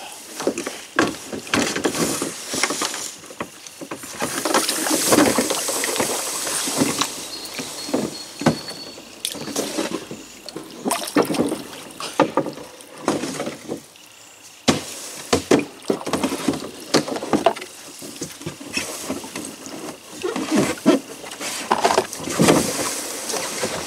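A kayak being handled and paddled in shallow water: many irregular knocks and scrapes of hull and paddle, with water sloshing.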